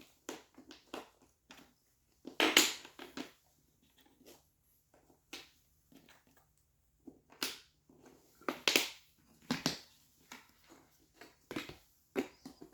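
Wooden jigsaw puzzle pieces being handled, with irregular knocks and clatters of wood on wood and a few louder clacks scattered through.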